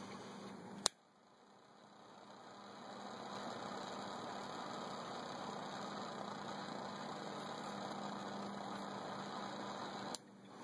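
Butane torch lighter lighting a cigar: a sharp ignition click about a second in, then the jet flame hissing steadily, and another sharp click near the end.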